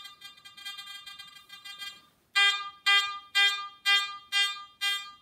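Garrett AT Max metal detector with an NEL Tornado coil giving its target tone: a faint steady tone for the first two seconds, then loud beeps about twice a second as a target is swung back and forth over the coil. The beeps mean a detection at about 13 inches.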